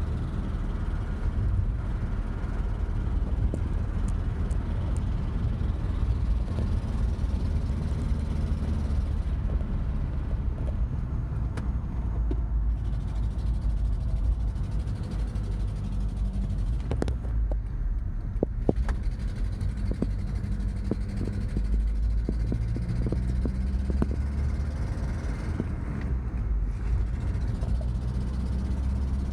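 1986 Mazda B2000 pickup's four-cylinder engine running while driving, loud through a horrendous exhaust leak. Its pitch steps up and down several times, with a few sharp clicks near the middle.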